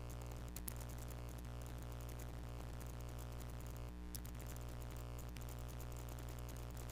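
A steady low hum with a stack of even overtones, unchanging apart from a brief shift about four seconds in, with a few faint clicks.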